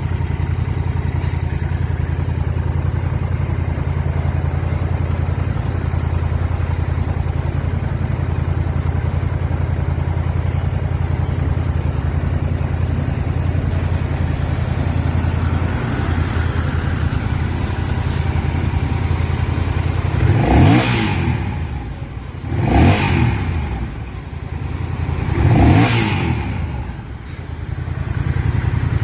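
Honda Rebel 1100 DCT's 1,084 cc parallel-twin engine idling steadily, then revved three times about two to three seconds apart, each rev rising and falling back to idle.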